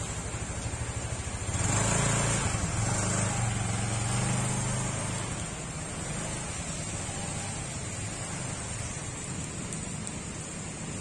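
Motor vehicle engine running with a steady low hum and road noise; it grows louder from about a second and a half in for some three seconds, then settles back.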